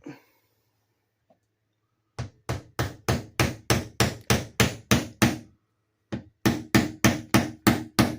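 Hammer driving a nail into wood with quick, even blows, about four a second. The blows start about two seconds in, stop briefly just before the six-second mark, then start again.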